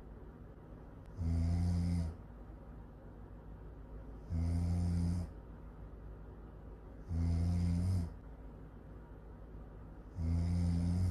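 Really loud snoring: four snores about every three seconds, each under a second long with a low buzzing pitch, and a faint steady hiss between them.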